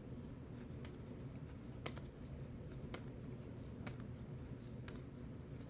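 Trading cards being flipped through one at a time in the hands: faint sharp clicks and snaps about once a second over a low steady hum.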